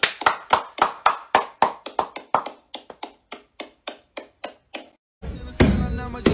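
A quick, even run of sharp taps, about four a second, growing fainter, then loud music starts about five seconds in.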